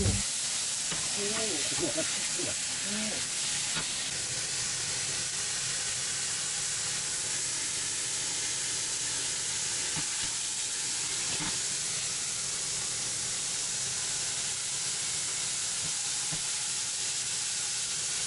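Makchang (grilled intestines) sizzling steadily in a hot pan, with a few faint clicks.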